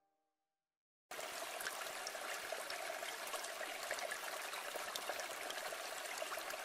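Flowing stream: a steady trickle and babble of water that starts suddenly about a second in, after silence.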